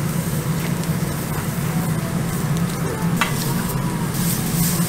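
Prawns and pineapple sizzling on a hot charcoal grill grate, a steady crackling hiss over a low hum, with a couple of light clicks from metal tongs turning the food.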